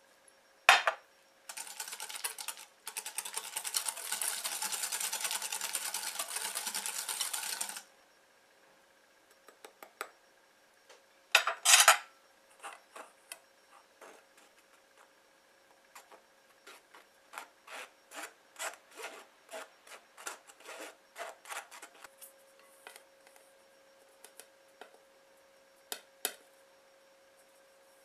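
A wire whisk beats softened butter in a glass bowl, making a fast, dense scraping for about six seconds. After a loud clatter, a metal mesh sieve sifts flour, giving a long series of light taps against the bowl.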